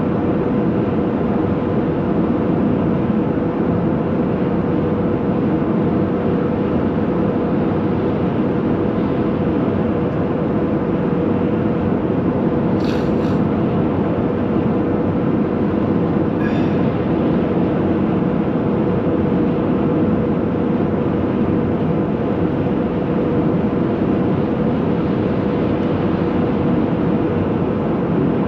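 Steady road and tyre noise with engine drone inside a car cabin at motorway speed, with a steady hum running through it. Two brief faint high hisses come about halfway through.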